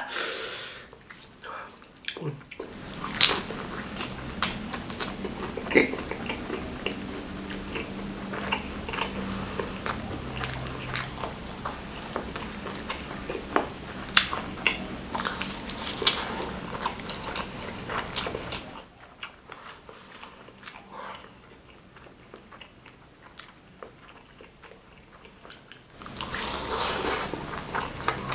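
Close-miked eating: a person chewing spicy instant noodles and egg martabak, with many small wet mouth clicks over a low hum. It goes quieter for several seconds in the second half, then a louder rushing mouth sound comes near the end.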